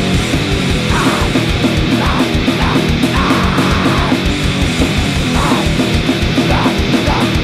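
Grindcore recording with the full band playing: heavily distorted guitars over fast, relentless drumming.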